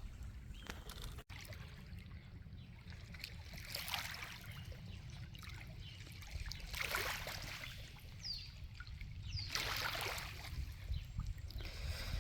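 Water lapping at the shore, in swells of noise every few seconds, over a steady low rumble of wind on the microphone.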